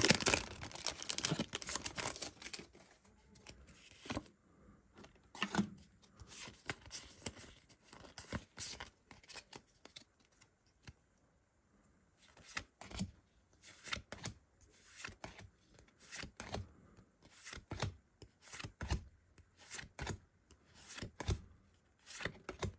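Pokémon trading cards being flipped and slid one past another in the hands: short swishes and snaps of card stock at irregular intervals, busiest in the first few seconds.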